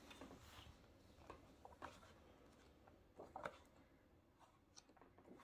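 Near silence with a few faint rustles and soft taps of a large hardcover book's paper pages being turned by hand, the clearest about three and a half seconds in.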